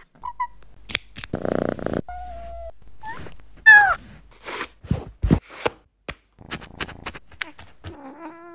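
A kitten purring briefly, then giving a short falling meow, with many sharp clicks and taps scattered through. A second meow starts near the end.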